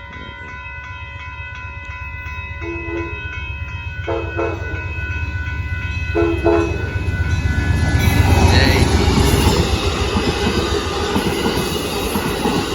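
Amtrak passenger train approaching and passing a grade crossing: steady crossing-bell ringing while the locomotive sounds three short horn blasts, about three, four and six seconds in. The train reaches the crossing about eight seconds in and runs past loudly with wheel and engine noise.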